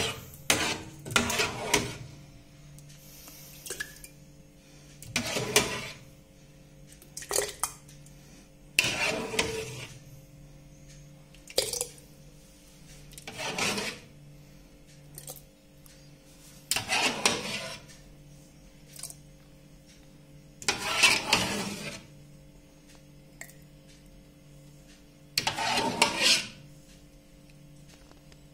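Metal ladle scraping in a metal pot of thick pumpkin jam and knocking against a plastic funnel as the jam is ladled into a glass jar. There are about a dozen short scrapes and clinks a few seconds apart.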